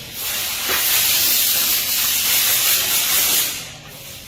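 A loud, steady hissing spray that stops about three and a half seconds in.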